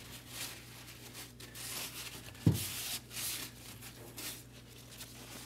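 Paper shop towel rubbing and wiping around the fuel pump opening of a plastic fuel tank in repeated swishing strokes, cleaning the sealing surface. One sharp thump about two and a half seconds in is the loudest sound.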